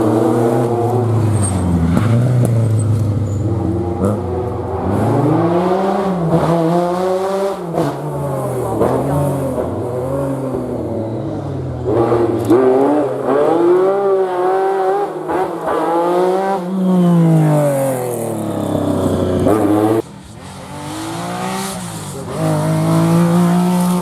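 Rally car engines driven hard, the pitch climbing and dropping again and again with gear changes and lifts off the throttle. About twenty seconds in the sound drops suddenly, then another engine builds up.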